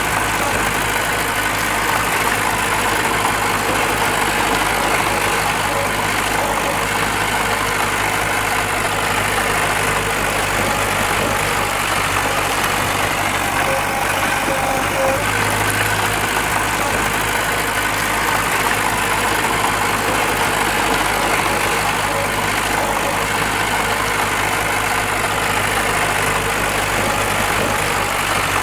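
Diesel engine of heavy earthmoving machinery running steadily at a constant pitch.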